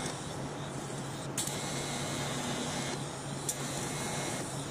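TIG welding arc burning steadily as filler rod is fed in: a continuous hiss over a low hum, with a couple of brief high ticks.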